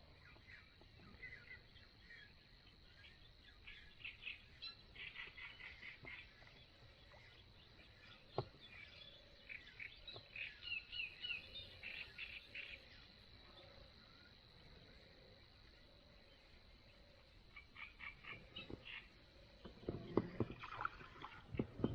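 Birds chirping in short bursts of high twittering, over a faint steady high tone. A run of louder clicks and knocks comes near the end.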